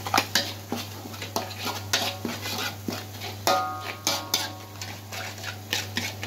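Metal spatula scraping and knocking against a metal wok while stirring chili spice paste, in quick irregular strokes. One strike about three and a half seconds in makes the wok ring briefly.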